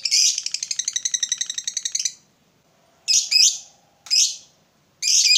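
Lovebird's rapid chattering trill, the long 'ngekek', at about ten notes a second, cutting off about two seconds in. Then three short, harsh calls about a second apart.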